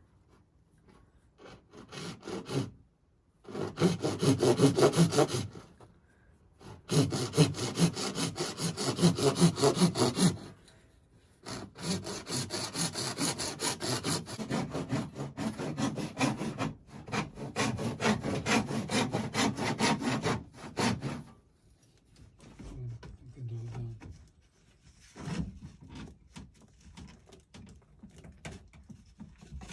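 A hand saw cutting through a sewer pipe in three runs of rapid back-and-forth strokes. The last run is the longest, about nine seconds. Fainter scraping follows near the end.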